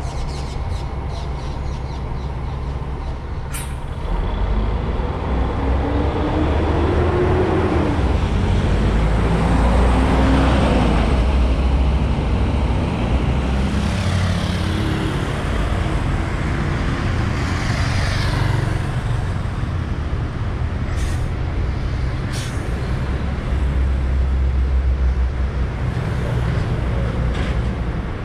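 Articulated city buses at a stop. About four seconds in, one engine gets louder and rises in pitch as the bus pulls away, and near the end another bus comes in and stops. Short air-brake hisses come partway through, with other traffic passing in between.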